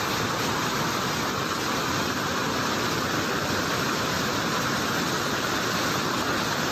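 Swollen brown floodwater rushing in a torrent, a steady, even rush of water with no break.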